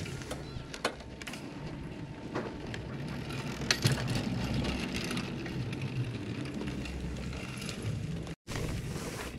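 Chairlift running: a steady low rumble with scattered clicks and creaks. The sound cuts out for a moment near the end.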